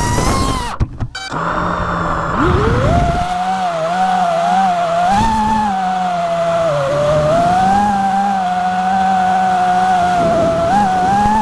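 FPV quadcopter motors whining, the pitch rising and dipping as the throttle changes, with a sharp climb in pitch about two and a half seconds in.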